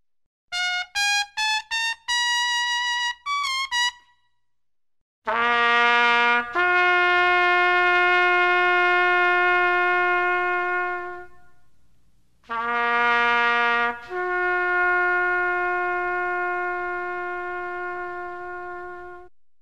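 Solo trumpet: a quick run of short notes, then twice a short low note stepping up to a long held higher note that slowly fades away.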